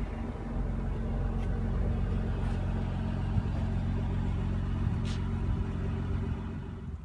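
A car engine idling steadily with a low, even hum.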